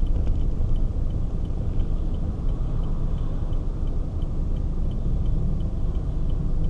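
Low, steady engine and road rumble of a car in slow stop-and-go traffic, heard from inside the cabin, with a faint regular ticking of about three ticks a second.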